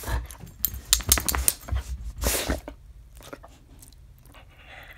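Yellow Labrador moving about excitedly at close range: a run of bumps, clicks and rustling over the first two and a half seconds, with a short noisy burst a little after two seconds, then quieter.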